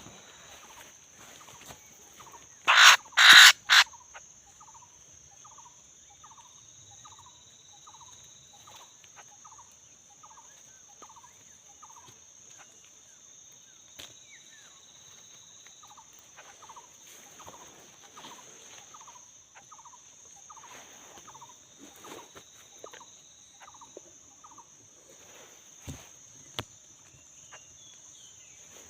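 Bird calls: a loud, brief burst of cackling calls about three seconds in, followed by long runs of short repeated notes, about two a second, over a steady high insect buzz.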